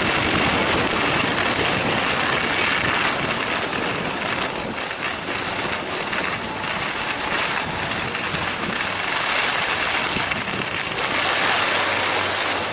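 Skis sliding and scraping over groomed, packed snow: a steady hiss.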